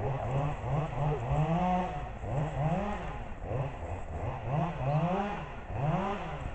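An engine revving up and down in quick repeated bursts, about a dozen rises and falls in pitch.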